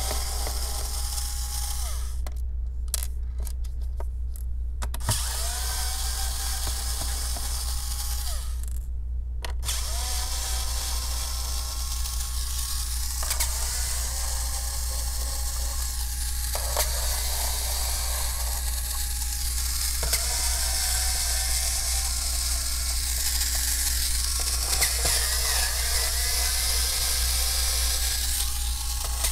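Small cordless electric screwdriver backing screws out of a laptop's bottom cover, whirring in repeated runs of a few seconds. Each run spins up to a steady whine, with short pauses between screws. A steady low hum runs underneath.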